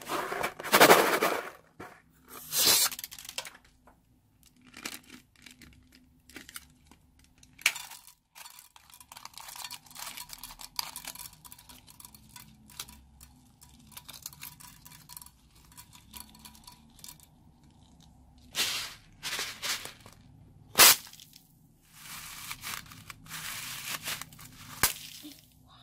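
Scissors snipping open rubber balloons, and small plastic beads and foam beads spilling out of them into a glass dish of foamy slime base, heard as a series of separate short noisy bursts with a few sharp clicks.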